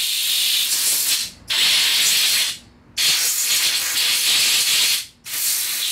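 Compressed-air blow gun on a shop air hose, hissing in four blasts with short breaks between them, the longest about two seconds. It is blowing cleaning solvent and debris out of the passages of a Briggs & Stratton carburetor primer plate.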